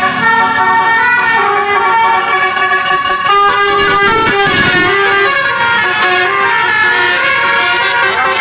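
Basuri telolet horn on a tour bus playing a tune: loud multi-tone horn notes that change pitch one after another, with a wavering siren-like sweep about halfway through.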